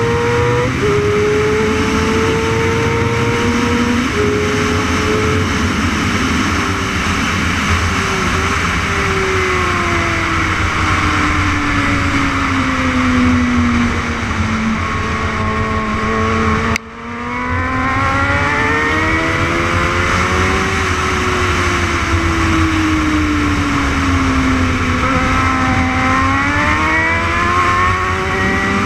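600cc superbike race motorcycle engine at full throttle, recorded from an onboard camera over wind rush. The pitch steps down with quick upshifts in the first few seconds, then falls steadily as the bike slows into a corner. The sound dips sharply for a moment a little past halfway, then the engine climbs again, eases off and winds up once more near the end.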